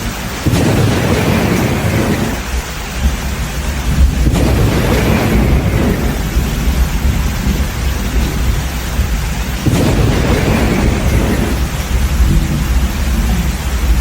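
Thunderstorm: three sudden thunderclaps, near the start, about four seconds in and about ten seconds in, each rolling away over steady heavy rain.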